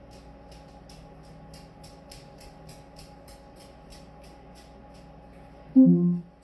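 Low room hum with a faint, even ticking about three or four times a second. Near the end, an Amazon Echo smart speaker gives a short, steady-pitched sound, about half a second long, as it starts to reply.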